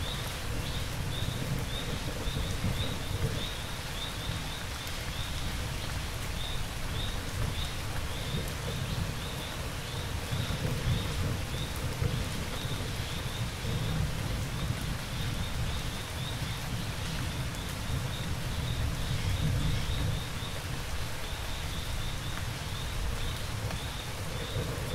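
Steady rain falling, with low rolling thunder that swells and fades several times. Crickets chirp in an even rhythm, about two chirps a second.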